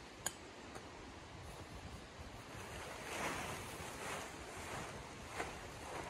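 Large tent fabric rustling and swishing as it is pulled out and lifted, loudest in two swells around the middle, over a steady rush of river water. A sharp click just after the start and another near the end.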